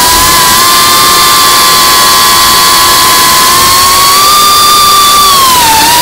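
Brushless motors and propellers of a Geprc Cinelog35 FPV cinewhoop drone whining steadily over a rushing hiss. The pitch dips briefly near the end as the motors slow, then starts to rise again.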